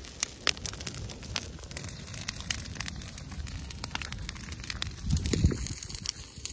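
A brushwood fire of dry thorny branches crackling, with many sharp pops throughout. Wind rumbles on the microphone, with a louder gust about five seconds in.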